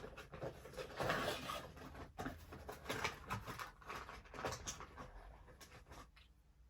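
Handling noises: a string of small clicks and knocks with rustling, as a diecast metal figure and its cardboard box packaging are handled; the sounds thin out near the end.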